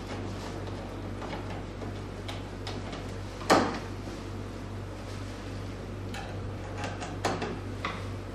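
Scattered knocks and clicks of machine parts being handled and fitted during assembly, with one loud knock about three and a half seconds in and a few sharper clicks near the end, over a steady low hum.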